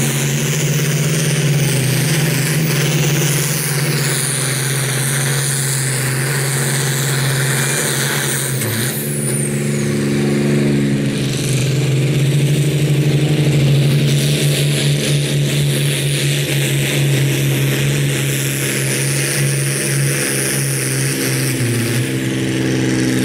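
Pro Farm pulling tractors' diesel engines running hard and steady under full load while pulling the weight sled: first an International, then a John Deere about halfway through.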